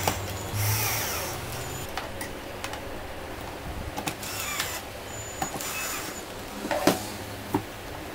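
Cordless drill running in short bursts while fitting a metal latch, with scattered clicks and a sharp knock about seven seconds in.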